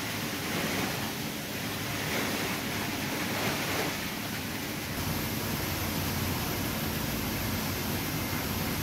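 Steady machinery noise with a water-like hiss from a PET bottle flake washing line: the conveyor and washer motors running, with wet plastic flakes and water moving through. About five seconds in the sound changes to a fuller, deeper rumble.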